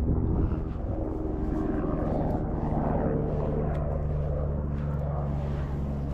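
A steady engine drone holding an even pitch.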